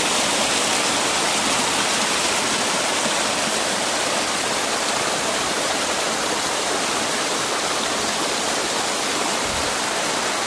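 Mountain creek rushing and splashing steadily down a granite cascade: a loud, even hiss of falling white water.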